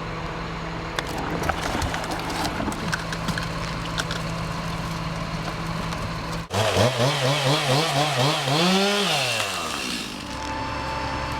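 Chainsaw engine running at a steady high speed. After a sudden break it revs unevenly, climbs to one high rev and then drops back to idle near the end.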